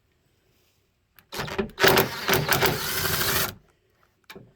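A tool spinning out one of the 8 mm bolts that hold a pickup's grille brace: a fast, dense mechanical run lasting about two seconds, starting about a second in, with a short click near the end.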